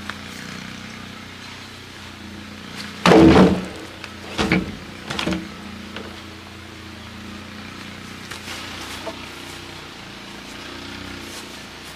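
A heavy wooden log dropped onto a pile of logs: one loud hollow thud about three seconds in, then two lighter wooden knocks over the next two seconds as it is shifted into place.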